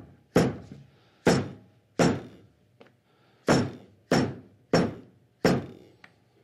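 A mallet striking a glued, folded leather strap on a wooden workbench, pressing the glued crease flat. Seven sharp thuds, about one every 0.7 s with a short pause in the middle.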